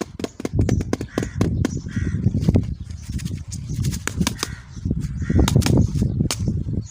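Plastic candy packaging being handled and opened right at the microphone: dense crackling and clicking over a low rumble of handling, in two longer spells.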